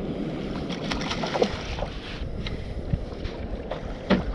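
Wind on the microphone and water washing around a kayak at sea, a steady rushing noise broken by a few small knocks.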